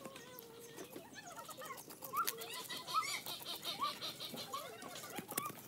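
Short, high chirping calls from animals, repeated irregularly, with a few sharp clicks in between.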